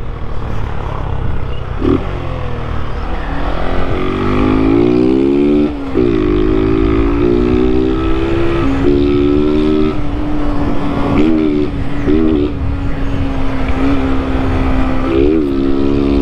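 Honda CG 160 motorcycle's single-cylinder engine through a modified 'operado' exhaust, accelerating with the note rising, dropping sharply at a gear change about 6 s in and again near 9 s, then holding a steady lower note with a few short throttle blips as the bike slows.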